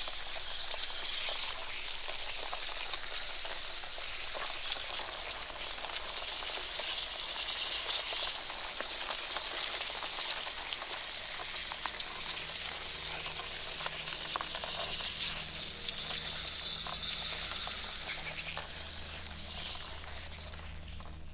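Dense crackling hiss, a skittering sound effect for a swarm of crawling spiders, swelling and ebbing in waves. A faint low hum comes in about halfway, and the crackle fades away near the end.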